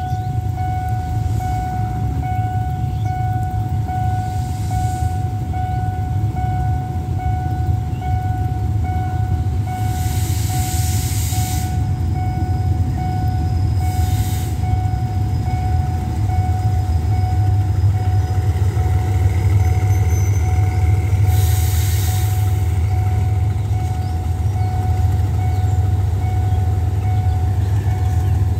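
Level-crossing warning bell dinging in a fast steady repeat, over the low steady rumble of a GE diesel-electric locomotive (SRT GEK 4006) hauling a passenger train slowly through the crossing, its rumble growing a little louder as it draws near. A few short hisses cut in, about a third of the way through and again near three-quarters.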